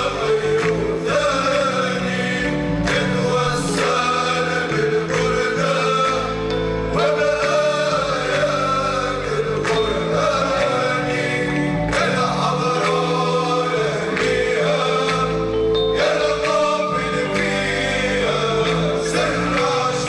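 A Tunisian Sufi choir of men singing a religious chant together, lead voices over the group, carried by stage microphones.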